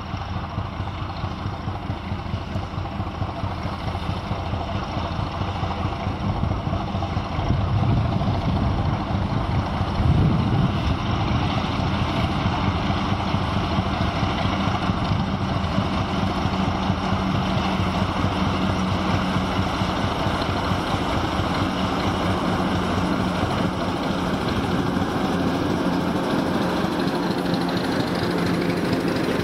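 ChME3 diesel shunting locomotive's six-cylinder engine working under load, pouring black smoke, as it hauls a freight train. It grows louder over the first ten seconds as it approaches, then runs steadily as it passes close by, with the wagons rolling past near the end.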